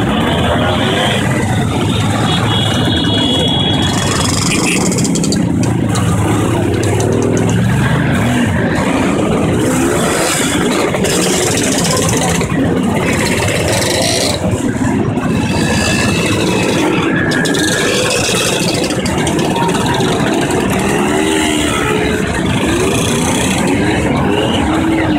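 Many scooters and motorcycles, mostly Vespas, running together as a group rides off slowly, engines idling and revving up and down over one another.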